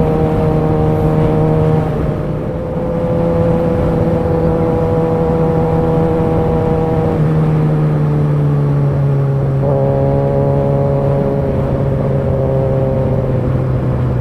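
Kawasaki ZX-6R's inline-four engine running at steady cruising revs under way. Its pitch sags from about seven seconds in and rises again just before ten seconds, with a short dip in loudness near two seconds.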